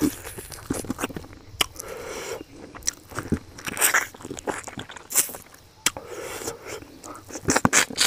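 Close-up eating sounds of a man chewing a handful of rice and mutton curry: wet lip smacks and mouth clicks throughout, with a cluster of louder smacks near the end.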